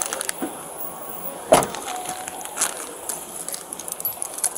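Scattered clicks and knocks over a low hiss, the sharpest knock about a second and a half in and another about a second later.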